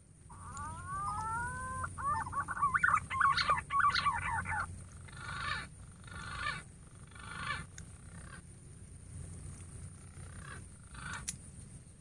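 Decoy green pigeon (punai) whistling to call wild green pigeons into the trap tree: two rising whistled glides, then a fast warbling phrase about two seconds in, then three shorter calls about a second apart that grow fainter.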